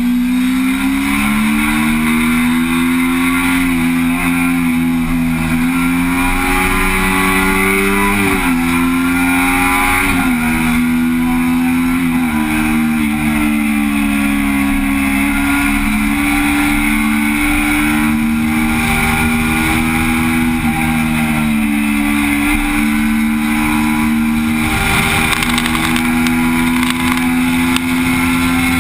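Motorcycle engine heard from on the bike while riding, with a constant rush of wind. The engine note climbs under throttle over the first several seconds, dips sharply three times as the rider shifts or rolls off, and then settles into a steady cruise.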